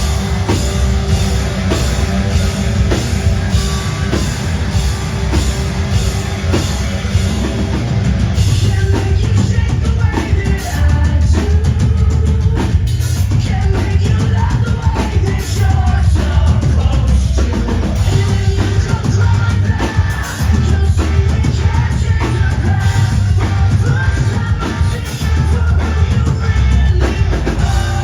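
A post-hardcore rock band playing live and loud: a pounding drum kit, distorted electric guitars and bass, with singing.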